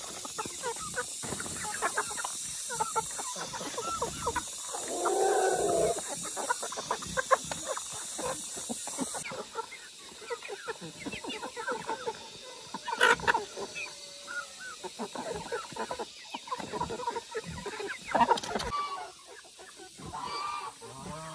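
Short animal calls, scattered among many clicks and knocks; the loudest call comes about five seconds in.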